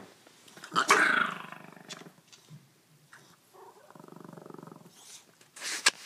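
Small dog vocalizing: a loud grumbling cry about a second in that fades away, then a quieter, evenly buzzing growl around four seconds in. A couple of short noisy bursts come near the end.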